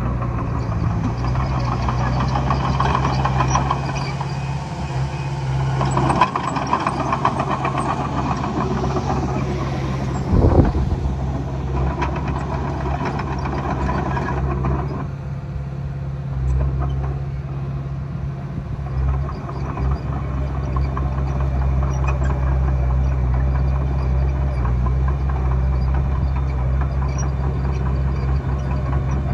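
Komatsu D20A crawler bulldozer's diesel engine running steadily, its load rising and easing. There is one brief sharp sound about ten seconds in.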